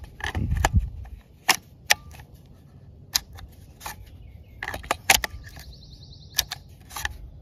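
Polymer 22 LR magazine knocking and clicking against the magwell of a Smith & Wesson M&P 15-22 as it is handled and pushed in: a string of sharp, separate plastic clicks and taps, about ten in all.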